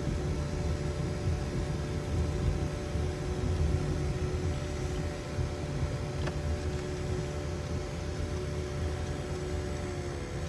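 Car cabin noise while driving on a paved road: steady low engine and tyre rumble with a faint steady hum.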